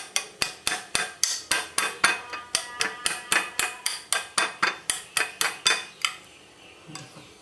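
A utensil striking a metal bowl in quick, even strokes, about four or five a second, each with a short ring, stopping about six seconds in.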